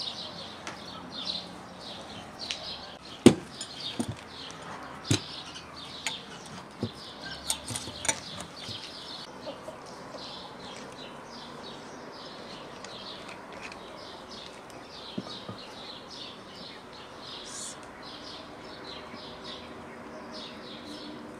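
Hand-cranked lid seamer rolling a tin lid onto a glass jar, giving sharp metal clicks in the first half, the loudest about three seconds in. Small birds chirp steadily throughout.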